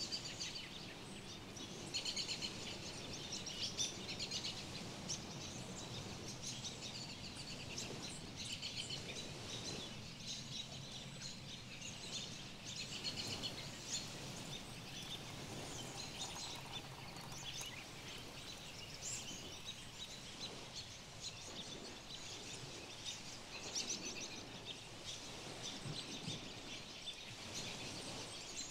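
Small birds chirping in quick, repeated twitters throughout, over faint steady outdoor background noise.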